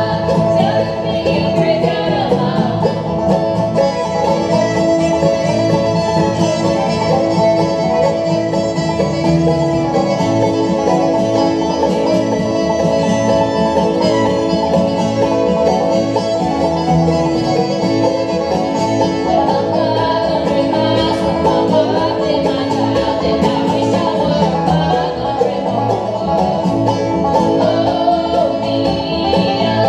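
Bluegrass band playing: banjo, acoustic guitar, mandolin, fiddle and upright bass together, with two women singing in harmony at the start and again near the end, and the fiddle taking the lead in between.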